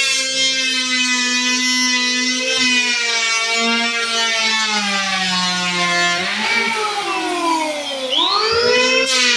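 Electric hand power planer running and cutting down the raised edges of patched hardwood floorboards, a steady high whine with many overtones. Its pitch sags as the blades bite in, dips again a little after the middle, and climbs quickly near the end as the motor runs free.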